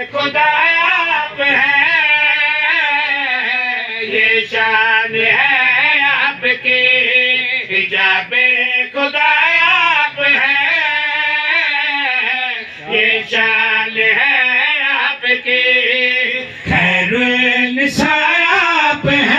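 Men's voices singing an Urdu qasida, a devotional praise poem for Bibi Fatima Zahra, through microphones, with melismatic, wavering held notes and no instruments.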